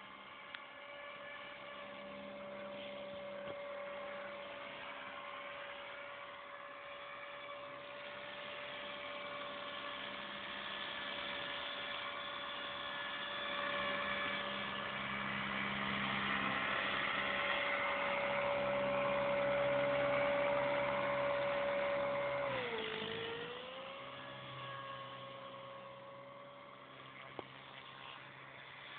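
Align T-Rex 250 electric RC helicopter in flight: a steady high whine from its motor and rotor that grows louder as it comes nearer. About three-quarters of the way through the pitch dips sharply and recovers, then the sound fades as it climbs away.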